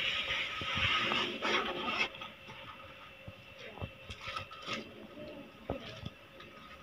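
Parcel packaging being handled: about two seconds of rustling and scraping, then scattered light clicks and taps as the package is worked open.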